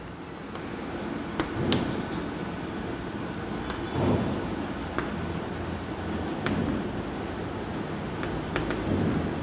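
Chalk writing on a chalkboard: a steady scratching as words are written out by hand, with a few short sharp taps of the chalk striking the board.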